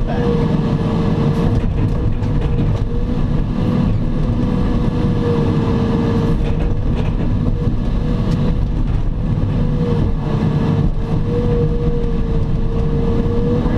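Excavator's diesel engine running steadily at working speed, a deep rumble with a steady whine riding over it, and a few light knocks.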